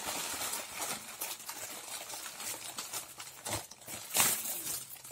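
Plastic packaging crinkling and rustling as hands unwrap an inflatable air-column cushion bag and its plastic outer wrap, with a louder rustle about four seconds in.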